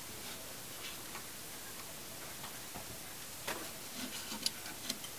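Faint, irregular clicks and taps, more frequent in the last two seconds, from a puppy's claws scrabbling on the wooden edge of its box as it climbs out.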